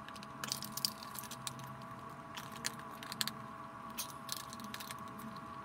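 Irregular metallic clicks from a torque wrench and socket tightening the clutch onto a Stihl 028 AV Super chainsaw's crankshaft, over a steady faint hum that cuts off suddenly near the end.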